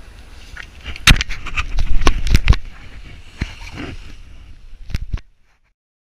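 Wind rumbling on the action camera's microphone, with a run of sharp knocks and clacks between about one and five seconds in. The sound cuts out entirely shortly after five seconds.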